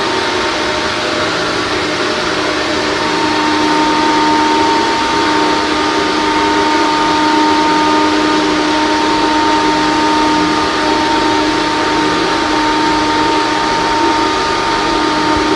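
Bathroom exhaust fan running steadily: an even rush of air with a steady hum in it.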